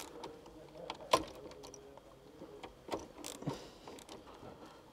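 Sparse metallic clicks and taps of a hand tool working a terminal bolt inside an electrical distribution board. The clearest click comes about a second in, with a few more around the three-second mark.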